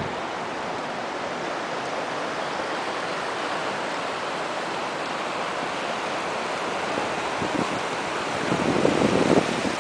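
River water rushing steadily over granite boulders and small rapids. Near the end, wind buffets the microphone in louder low gusts.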